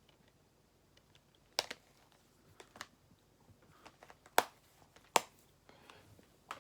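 A handful of sharp plastic clicks and taps from handling a DVD case, the two loudest about four and five seconds in, over quiet room tone.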